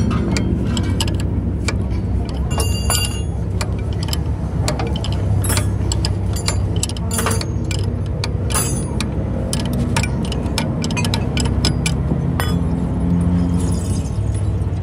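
Hand tools clinking and clicking on the steel fittings of a truck's torque arm rod, in scattered irregular metal taps with a short jangly cluster about three seconds in, over a steady low hum.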